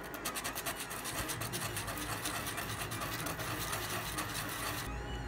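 Small plastic parts handled and worked together by hand, making a rapid, even run of clicking and rubbing that stops suddenly near the end.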